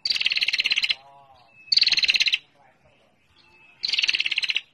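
Female prenjak (prinia) giving its 'ngetir' call: three rapid, fast-pulsed trills, each under a second long, with short pauses between them.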